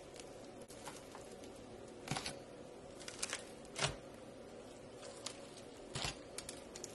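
A wire potato masher pressed repeatedly into thick fluffy slime topped with glitter flakes, giving soft sticky crackles and squishes over a steady faint hiss. A few louder crackles come about two, three, four and six seconds in.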